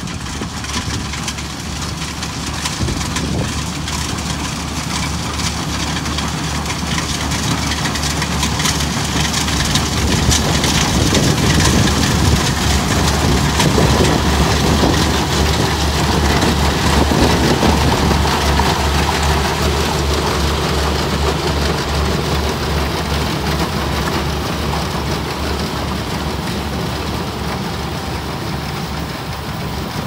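Kubota DC-105X combine harvester running as it cuts rice, a steady engine hum under a rushing machinery noise. It grows louder as it comes close, peaking around the middle, then fades as it moves away.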